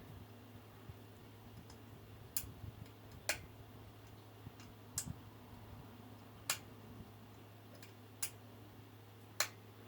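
A wobbly ceiling fan running with a low steady hum, giving six sharp clicks at uneven intervals of about one to one and a half seconds.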